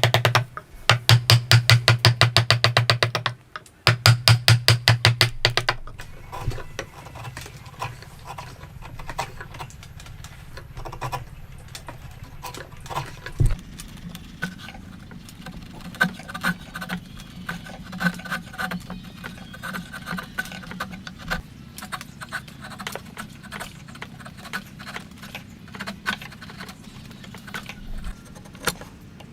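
Wood being struck in fast, even knocks, about six or seven a second, in three short runs. After that, quieter irregular tapping and clicking from the woodworking continues.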